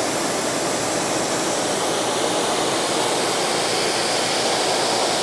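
Pressure washer spraying a steady, hissing jet of water onto dirty metal coolant tubes on a tile floor, blasting the grime off them.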